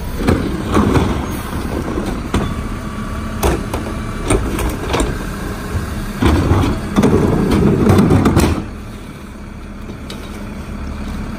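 Rear-load garbage truck working at the curb: a wheeled trash cart knocking against the rear hopper as it is tipped and emptied, with trash clattering in over the running engine and hydraulics. About eight and a half seconds in the noise drops to a steadier, quieter running.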